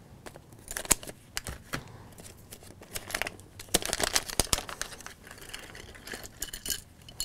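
Thin plastic LEGO Minifigures blind-bag packet crinkling in the hands and being torn open, an irregular run of sharp crackles, busiest about halfway through.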